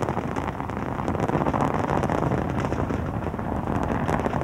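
Space Shuttle Columbia's two solid rocket boosters and three main engines burning during ascent: a steady rocket roar full of dense crackling.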